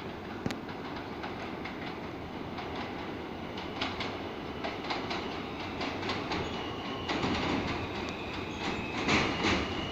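New York City subway train running into an elevated station. Its wheels click and rattle over the rail joints, growing louder as it nears. A high, steady wheel squeal comes in about two-thirds of the way through.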